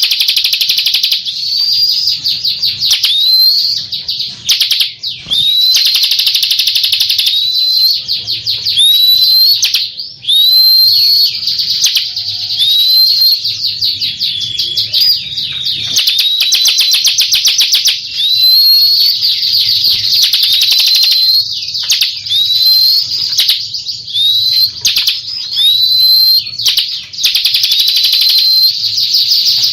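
Bar-winged prinia singing continuously: a fast, buzzy trill of rapidly repeated notes, broken every second or two by a short upslurred whistle.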